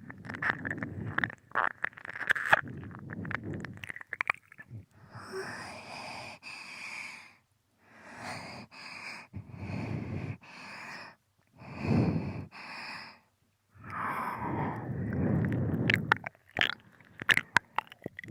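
Close-up binaural ear-licking: wet tongue and lip sounds with sharp smacking clicks and breaths, coming in stretches with brief silent pauses between them.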